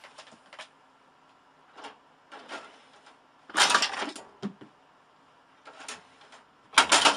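A cat scrabbling and leaping: a few soft knocks and rustles, then a louder clatter about three and a half seconds in as it jumps.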